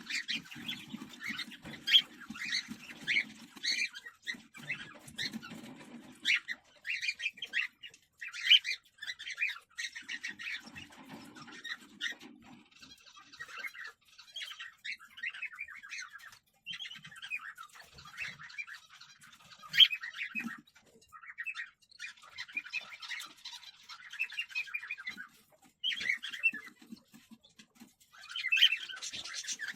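Cockatiels in a nest box giving rapid, raspy chirping calls in bursts of a few seconds, with short pauses between the bursts.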